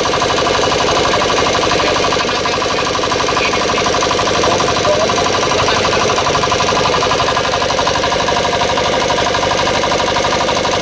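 A small single-cylinder air-cooled diesel engine running steadily, with a rapid, even knocking beat.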